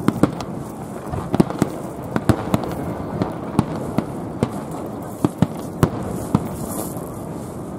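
Fireworks display: aerial firework shells going off in quick, irregular succession, a few sharp bangs and cracks a second over a continuous rumble.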